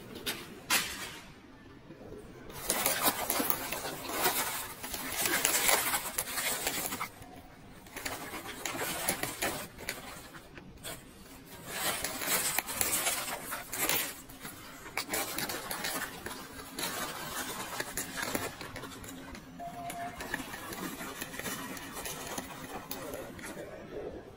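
Shopping cart rattling as it rolls over a tiled floor, in irregular stretches that stop and start.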